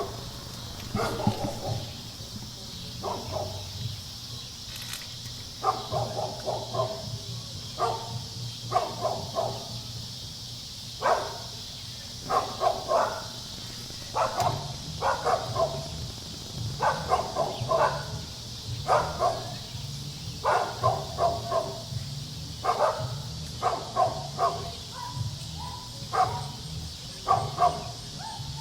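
Dog barking repeatedly in quick runs of two to four barks, a new run every second or two, over a steady background hiss.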